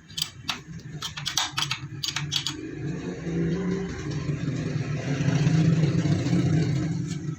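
A run of sharp clicks and knocks, then a motor running steadily with a low hum that grows louder about halfway through.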